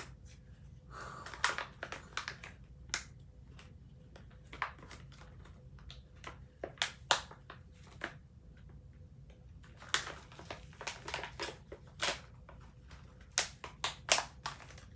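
Scissors snipping at a small sealed plastic bag, and the bag crinkling and crackling as it is squeezed and pulled at by hand. The sharp crackles come irregularly, in two busy spells: one soon after the start and one in the second half.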